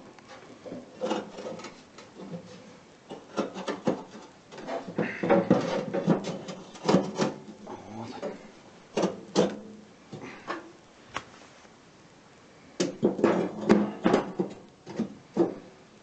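Firebricks being fitted into the firebox of a steel stove-fireplace: irregular knocks, clatters and scraping of brick against brick and metal, with a lull about eleven seconds in.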